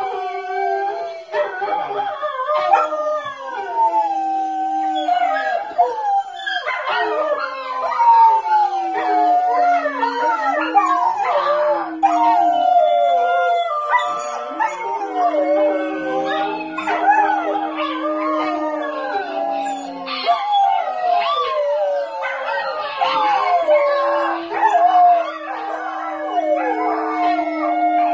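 A recording of dogs howling in chorus, played through a JBL Flip 4 portable speaker: many overlapping howls that rise and fall in pitch, with some long held notes in the second half.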